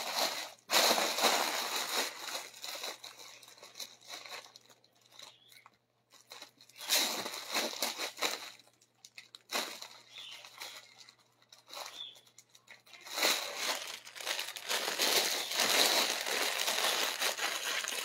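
Clear plastic garment bags crinkling and rustling as they are handled, in several spells with short pauses, the longest near the end.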